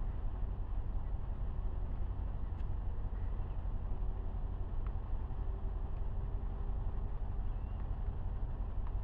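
Tow vehicle's engine idling, a steady low rumble heard from inside the cab.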